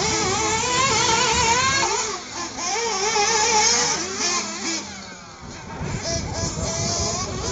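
Small nitro engines of 1/8-scale RC buggies buzzing, their pitch wavering quickly up and down with the throttle. The sound drops away for a moment about five seconds in.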